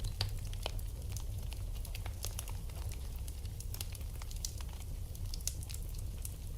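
Wood fire in a fireplace crackling, with frequent irregular small pops and snaps over a steady low rumble of burning.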